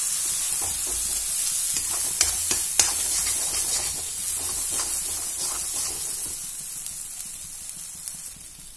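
Ground pea paste sizzling in hot oil and butter in a metal kadhai while a spatula stirs and scrapes it, with scattered clicks of the spatula against the pan. The sizzle and stirring die down toward the end.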